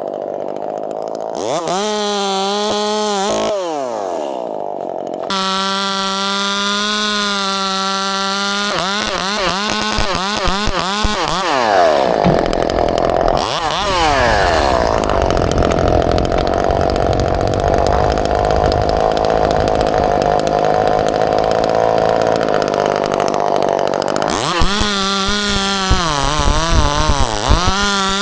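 Chainsaw revving in short bursts, then held at full throttle and cutting into maple for about twelve seconds, its pitch pulled down under load, before revving freely again near the end.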